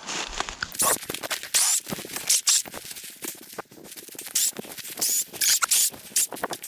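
A rapid, irregular run of scratching and crackling noises, starting about a second in.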